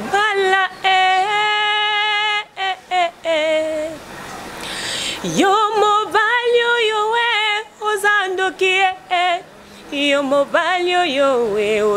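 A woman singing unaccompanied into a handheld microphone, holding long notes with vibrato. A short breathy pause a little before the middle, then she swoops up into the next phrase.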